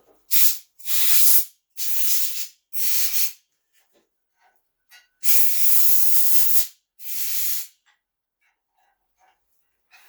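Compressed air from an air-hose blow gun, let go in six short blasts of hiss with pauses between, the longest about a second and a half.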